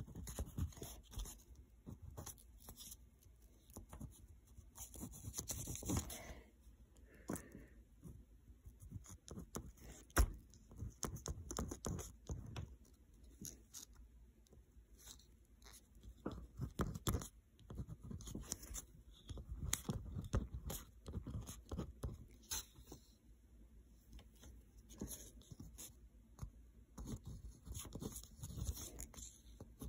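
Pen writing on paper close to the microphone: irregular scratching strokes with occasional sharper knocks.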